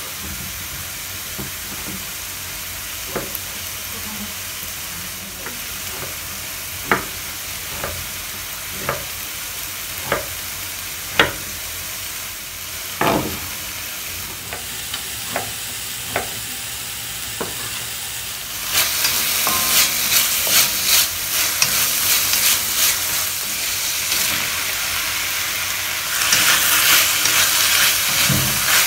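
Minced chicken sizzling in a wok under single sharp knife strokes on a wooden cutting board as luffa (sponge gourd) is cut. About 19 seconds in, the sizzle turns much louder and crackling as the luffa pieces go into the hot wok and are stirred with a wooden spatula.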